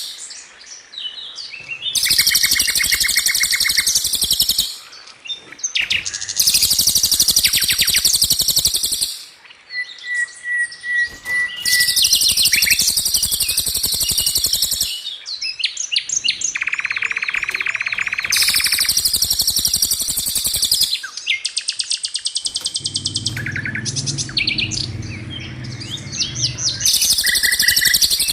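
A songbird tutoring track of repeated bursts of very fast, high trilled rolls and sharp 'shot' calls, each burst about two seconds long with short gaps between them. A steady high whistle comes a little before the middle, and a lower buzzing passage comes about three quarters of the way through.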